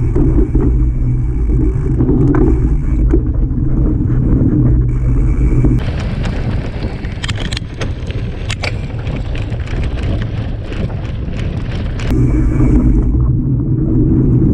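Wind buffeting the microphone of a handlebar-mounted action camera on a mountain bike ridden fast, a heavy low rumble. From about six seconds to about twelve seconds it gives way to the bike rattling and clattering over rough dirt trail, a dense run of sharp ticks, before the low wind rumble comes back.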